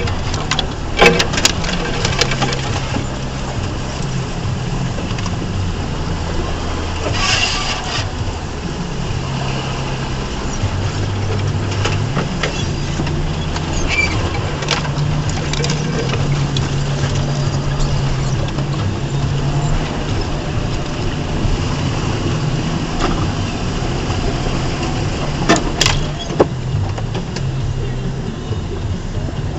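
A 2004 Ford Ranger's 4.0-litre V6 running at low revs as the truck drives a rough trail, its pitch stepping up and down with the throttle. A few sharp knocks come through, the loudest about a second in.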